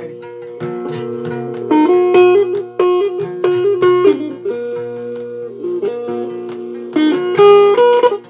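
Electric guitar and a xalam, a West African wooden lute, playing plucked melody lines together over steady held low notes. The playing gets louder with quick high runs about two seconds in and again near the end.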